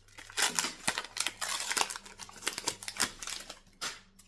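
Foil wrapper of a football trading-card pack being torn open and crinkled: a dense run of crackling and sharp clicks that stops just after four seconds in.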